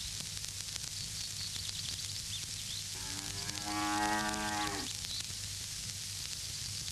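A single long, low moo-like call about three seconds in, lasting nearly two seconds and dropping in pitch as it ends. A steady low hum and hiss from the worn film soundtrack run underneath.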